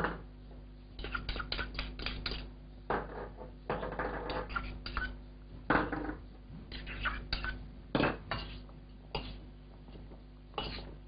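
Metal fork scraping and clinking against a stainless steel mixing bowl while couscous salad is tossed, with small metal bowls knocking as ingredients are tipped in. Irregular clinks and scrapes, some sharper knocks along the way.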